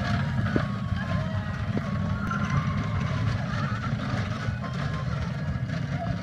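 Battery-powered ride-on kiddie cars driving across asphalt: a steady low rumble, with short electronic beeping tones over it.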